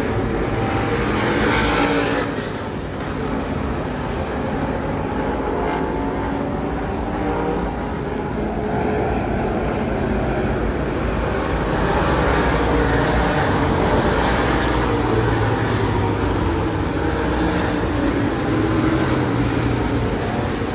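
Several dirt-track stock cars running laps around the oval, their engine notes rising and falling as they pass and work through the turns, a little louder in the second half.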